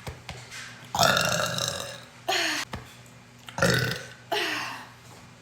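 A woman burping twice, two long drawn-out burps about a second in and about three and a half seconds in, each followed by a shorter one. The burps come from drinking a lot of carbonated drink.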